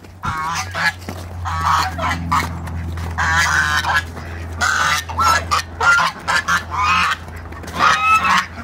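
A flock of domestic geese honking repeatedly, many short calls overlapping one after another, loud enough to drown out talk.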